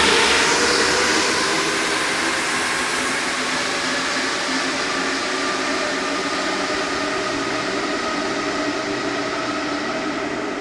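Rubber-tyred MPL85 metro train pulling out of the station, a steady rolling rumble with several whining tones over it, loudest at the start and fading slightly as it draws away. Its recently modified tyres give it a sound like a Paris MP05 train.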